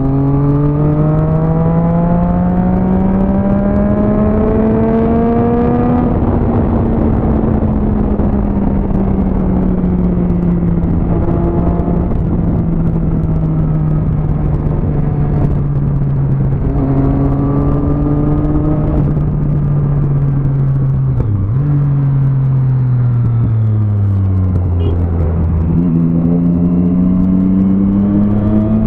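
Motorcycle engine heard from the rider's seat, rising in pitch as it accelerates for the first several seconds, then holding and slowly easing off while cruising. About two-thirds through, the revs drop and fall away, then climb again near the end. A steady rush of wind noise runs under it.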